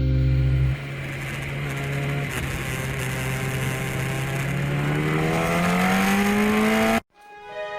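Music ending about a second in, followed by an engine-like sound rising steadily in pitch for about six seconds, like a motor speeding up, that cuts off suddenly near the end.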